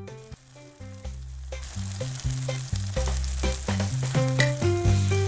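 Blended spice paste sizzling as it fries in hot oil in a pan; the sizzle comes in about a second and a half in and carries on steadily.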